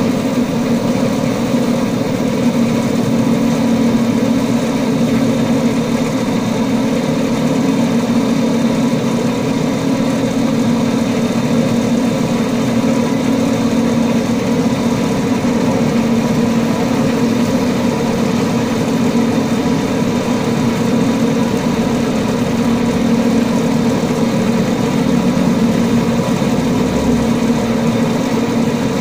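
Home-built CNC lathe running steadily while boring out an aluminium throttle body: an even machine hum with a strong low drone and a few steady higher tones, unchanging throughout.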